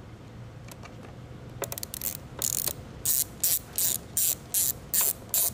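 Socket ratchet on a long extension clicking in short, regular back-swings, about two to three a second, as it tightens the ground-wire bolt onto a motorcycle battery terminal. A few light clicks come first.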